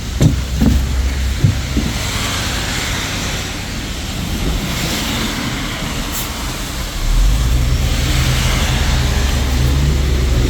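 Daewoo BS090 city bus's Doosan GL08P compressed-natural-gas engine running, growing louder and heavier about seven seconds in as the bus pulls away.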